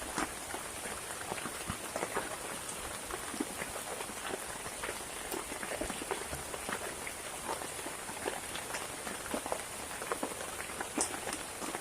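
Steady rain falling, with many separate drops striking close by over an even wash of rain.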